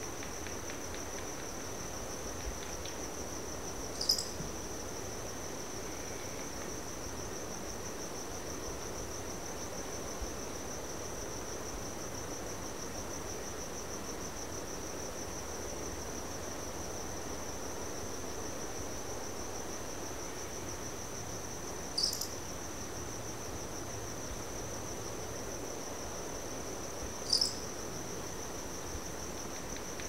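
Crickets trilling steadily in one even high tone, over a soft low rush of background noise. Three brief, sharp high chirps cut through it, about four seconds in and twice near the end.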